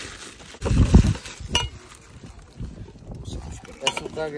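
Handling of metal food tins on a picnic table: a dull thump about a second in, then a single light metallic clink. A voice starts near the end.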